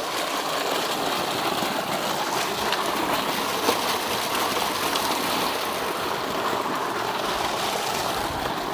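Tubewell discharge: water gushing from a large pipe and splashing into a concrete tank in a steady rush, with one sharp tap a little before halfway.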